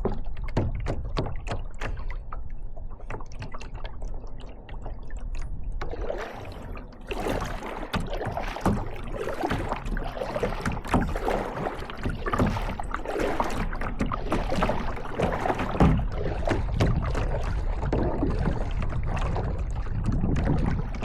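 Kayak being paddled: splashing from the paddle and water moving around the boat, louder and busier from about six seconds in.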